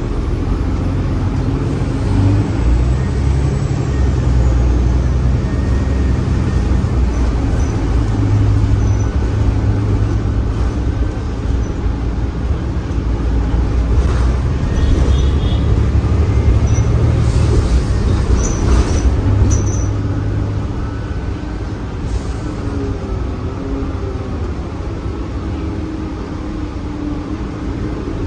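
Cabin sound of a New Flyer Xcelsior XDE60 articulated diesel-electric hybrid bus with a Cummins ISL9 diesel and Allison H 50 EP hybrid drive: a steady low engine and driveline hum that swells and eases a little. A few faint high chirps come through in the middle.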